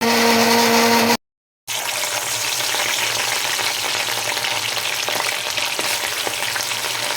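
An electric mixer grinder runs with a steady whir for about a second and stops abruptly. After a brief silence, fish pieces sizzle steadily with small crackles as they deep-fry in hot oil.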